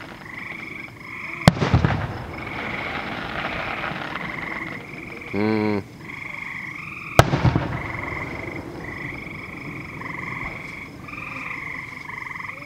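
Two distant aerial firework shells bursting about six seconds apart, each a sharp bang followed by a brief rumble and crackle. They sound over a steady, high trilling chorus of night calls. A short, low, wavering call about halfway through is the loudest sound.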